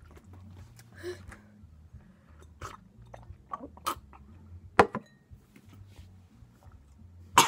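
Jelly beans being chewed, with small mouth sounds and clicks. About five seconds in there is a sharp knock, the loudest sound here, as a drinking glass is set down on the table and rings briefly.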